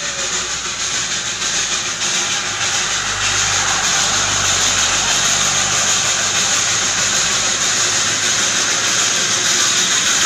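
Darjeeling Himalayan Railway toy train approaching, a steady hiss that slowly grows louder. Under it, a jeep engine hums past about three to five seconds in.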